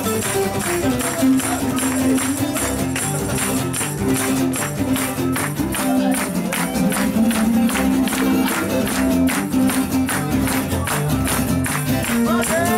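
Steel-string acoustic guitar strummed fast in a steady, driving rhythm, played live as an instrumental passage.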